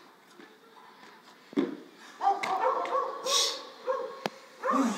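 A dog whining and barking in a run of short calls, beginning about two seconds in, with a single thud shortly before them.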